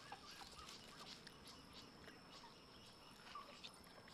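Near silence: faint outdoor background with a few soft, scattered chirps and ticks and a faint steady high tone.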